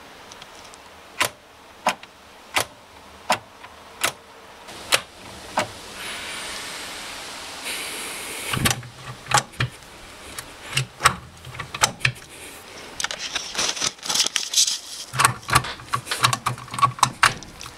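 Clicks and rattles of a 1969 Triumph Spitfire's gear lever and cabin controls being worked by hand while the gears, reverse lights and overdrive are checked. First comes a run of sharp clicks about two-thirds of a second apart, then a short hiss, then quicker irregular clicks and rattles with brief low hums.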